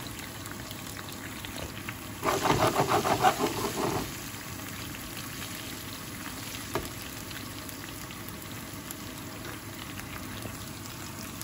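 Whole spices, garlic-ginger paste and chilies sizzling gently in oil on low heat, the tempering (tadka) for a daal. About two seconds in, a louder spell of rapid crackling lasts for about two seconds.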